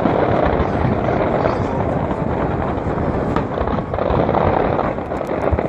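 Fireworks display heard as a continuous rolling rumble of distant shell bursts over crowd noise, with sharp crackles near the end.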